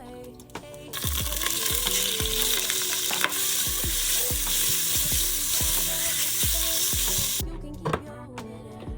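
Food sizzling loudly in a hot frying pan, starting suddenly about a second in and cutting off near the end, over a backing music track with a steady beat.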